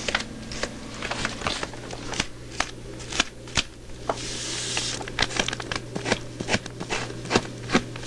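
Mechanical pencil pressed hard on spiral-notebook paper: irregular taps and clicks of the lead point on the page, with a stretch of steady scratchy scribbling about four seconds in.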